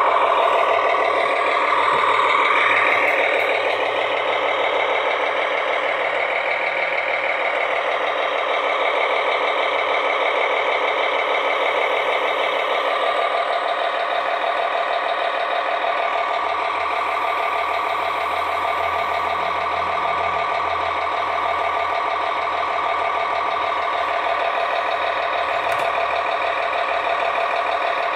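A custom 1/16-scale RC M35A2 6x6 wrecker truck running, giving a steady, unbroken truck-like engine drone that holds level throughout.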